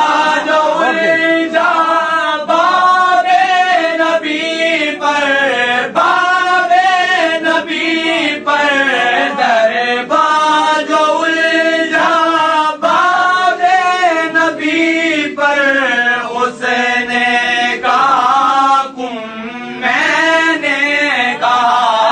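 A man's voice chanting in a slow, wavering melody, holding long notes, with a short pause near the end.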